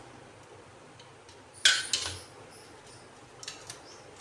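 A sharp metallic clink on a stainless steel plate about one and a half seconds in, ringing briefly, followed by a lighter knock and a few faint ticks later: a knife and bitter gourd pieces being handled on the plate.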